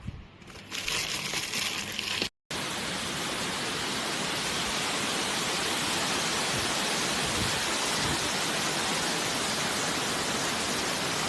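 A steady, even hiss that starts abruptly about two and a half seconds in and holds at a constant level. Before it comes a short, high rustle that cuts off suddenly.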